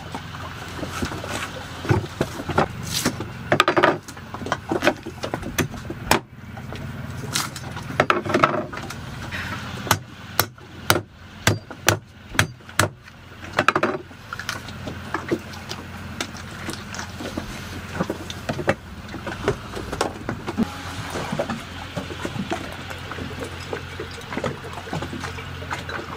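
Machete chopping open a green coconut on a wooden cutting board: a series of sharp knocks, with a quick run of strikes about halfway through.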